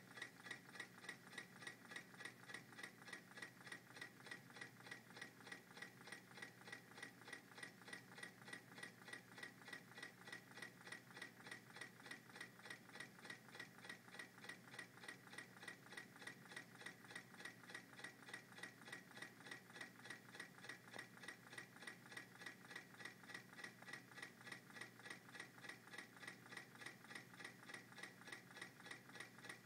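American Stirling Company MM-5 coffee-cup Stirling engine running steadily on hot water, its linkage and propeller making a faint, fast, even mechanical ticking, several ticks a second.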